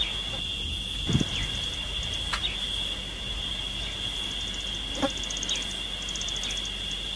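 Steady, high-pitched drone of insects with fast trills above it and a few short bird chirps; a brief low thump about a second in.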